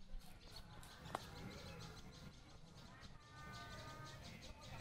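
Faint outdoor chirping of small birds, short repeated high notes over a steady low hum, with one sharp click about a second in.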